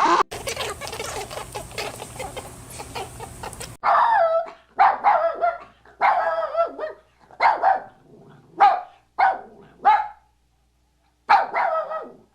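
A dog barking: about ten single barks with short pauses between them, starting about four seconds in. Before that, a few seconds of a rough, noisy sound that stops abruptly.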